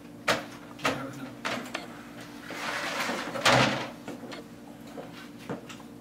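A plastic paint-roller tray and a metal roller frame being handled on a floor: a few sharp knocks and clatters, then a longer sliding rush near the middle, the loudest part, followed by lighter clicks.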